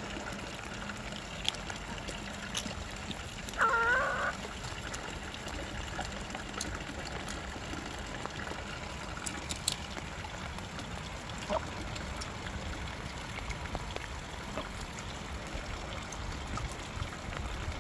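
Steady rain falling, with scattered light ticks. About four seconds in, a chicken gives one short call.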